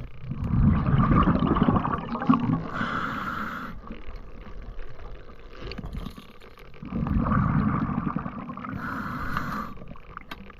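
A scuba diver breathing through a regulator: a bubbling rumble on each exhale, about a second in and again near the end, and a short hiss of air through the demand valve on each inhale between them.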